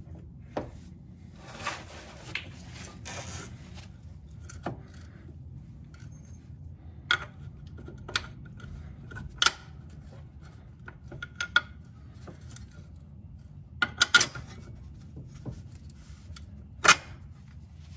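Metal-on-metal clanks and taps as the steel steering knuckle of a 2014 Chrysler 200 is worked into the slots at the bottom of a new front strut and the bolts are fed in. A scraping rub comes in the first few seconds, then a scatter of sharp knocks, some ringing briefly, the loudest near the end.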